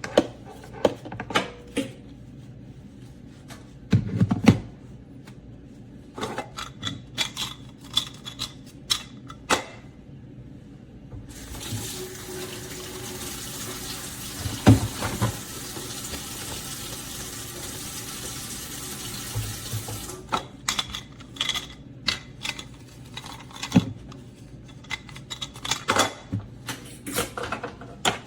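Water running steadily from a tap for about eight seconds in the middle, with clicks and knocks of handled objects before and after it.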